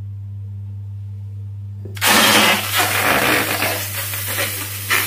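A whole split raw chicken dropped into hot oil in a stainless steel frying pan: a loud sizzle breaks out about two seconds in and carries on, rising and falling as the bird is settled in the pan. A steady low hum runs underneath.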